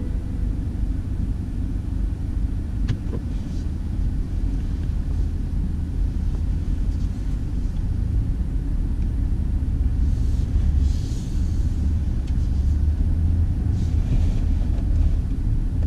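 BMW X5 xDrive50i with its twin-turbo V8 rolling slowly at low speed: a steady low rumble of engine and tyres, heard from inside the cabin.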